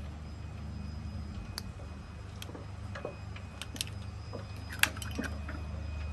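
Mussel shells clicking and clacking against each other and a ceramic bowl as the top half-shells are pried off by hand. The clicks come irregularly, with the sharpest one almost five seconds in, over a steady low hum.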